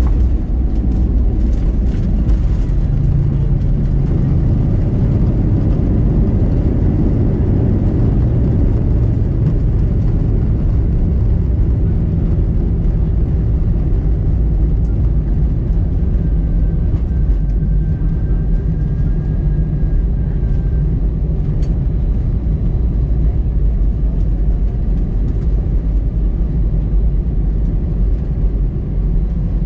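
Cabin noise of an Airbus A320-212 with CFM56 engines, heard from a window seat: a loud, steady low rumble of the engines and airframe, with a few light knocks about a second or two in.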